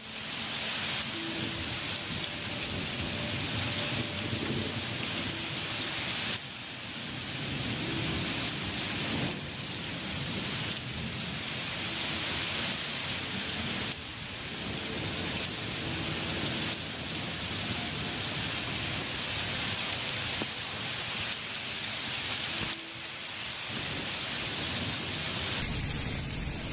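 Steady heavy rain with thunder rumbling low underneath during a thunderstorm. Near the end the rain changes to a brighter, harder hiss.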